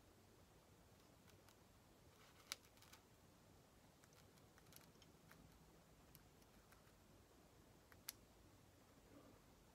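Near silence: faint room tone with a few small, soft clicks. The two sharpest come about two and a half seconds in and about eight seconds in.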